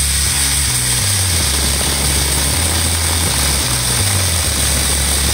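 Angle grinder fitted with a 12-inch chainsaw bar-and-chain adapter, running steadily and cutting through a wooden plank, over background music with a bass line.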